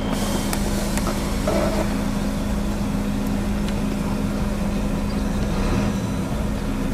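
An engine idling steadily, giving a constant low hum with an even drone.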